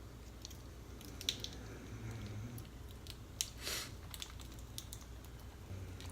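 Snow crab legs being cracked and eaten close to the microphone: a few sharp clicks of shell and a short wet squishing sound about two thirds of the way in.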